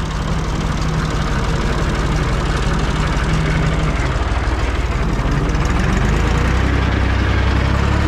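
Ursus C-360 tractor's four-cylinder diesel engine running steadily as the tractor drives, growing a little louder and deeper about six seconds in.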